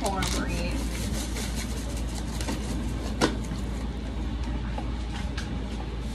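Dishwasher running with a steady hum and wash noise. Over it come light taps and clicks as cardboard mix boxes are emptied into a plastic mixing bowl, with one sharp knock about three seconds in.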